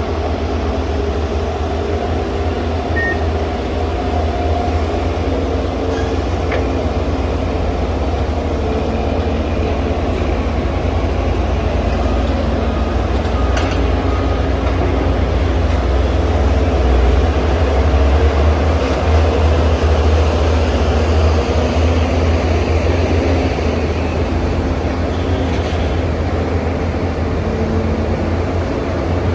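Wheeled excavator's diesel engine running steadily with a deep rumble while digging and loading dirt, a little louder around the middle, with a few faint knocks.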